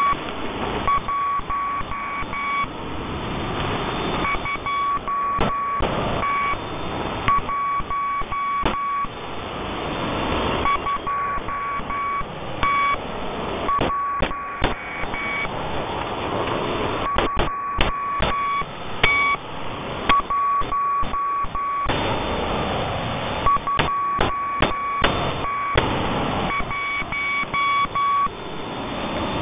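Morse code coming through a radio receiver: a single steady beep keyed on and off in short and long pulses, grouped with pauses, over constant hissing static with scattered crackles and clicks.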